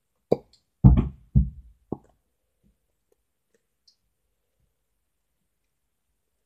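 Containers and supplies being handled on a tabletop: four knocks and thumps in quick succession in the first two seconds.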